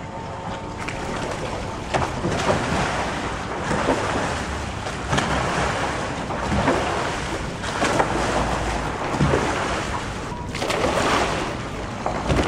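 Water splashing and sloshing close to the microphone, swelling in surges about every second and a half, as a sea kayak is paddled and rolled right by it.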